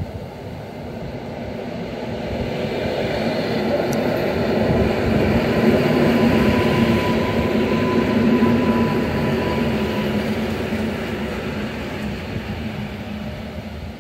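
Modernised EN57 electric multiple unit pulling in alongside the platform. The rolling wheel and running noise builds as the train draws level, peaks about halfway through, then eases off as it slows to a stop, with a steady whine through the middle part.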